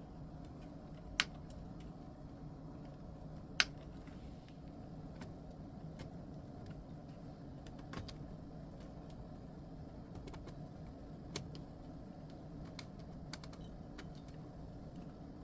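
Scattered small clicks and taps of tools and metal parts being handled on a workbench, with two sharper clicks about one and three and a half seconds in, over a steady low hum.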